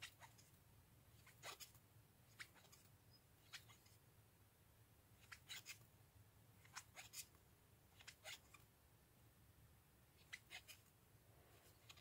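Near silence with faint, irregular small clicks and scratches, a few every couple of seconds: a metal crochet hook catching and drawing yarn through single crochet stitches.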